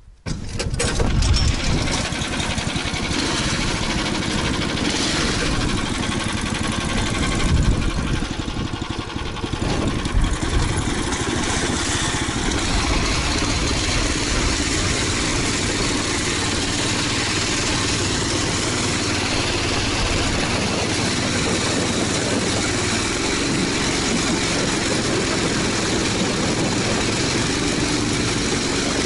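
A vehicle engine starts abruptly and then runs steadily, with a few brief surges in the first ten seconds.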